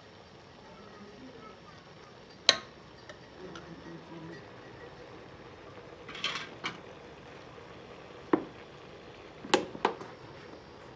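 Metal cooking utensils clinking: steel ladles and spoons knocked against steel bowls and plates. There are a few sharp separate clinks: one about two and a half seconds in, a short cluster around six seconds, one a little after eight seconds, and a close pair near the end.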